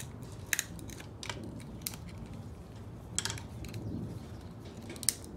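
Scattered metallic clicks and taps of a screwdriver and hands working the oil injection pump loose from a 1983 Yamaha PW50's engine case, the sharpest click about five seconds in.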